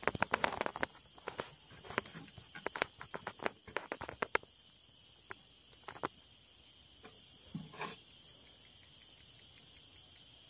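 Close handling noise: a quick run of clicks and taps for the first four seconds or so, then scattered ones, while a giant freshwater prawn is worked free of the hook. Under it, a steady chirring of insects.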